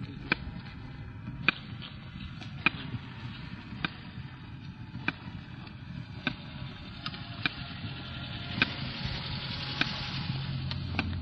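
Outdoor ambience of a walk: a steady rushing background noise with a low hum, growing louder near the end, cut by a sharp tap about every second and a quarter.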